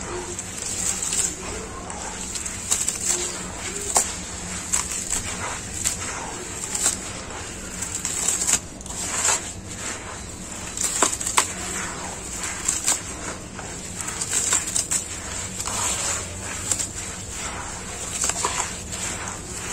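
Gloved hands squeezing and kneading wet, gritty sand: irregular squelching and crackling as the grains are pressed and broken apart.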